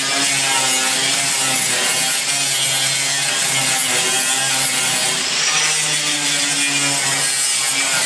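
Electric angle grinder grinding the steel of a pickup truck bed: the disc's high whine and the rasp of abrasive on sheet metal, its pitch shifting as pressure on the tool changes.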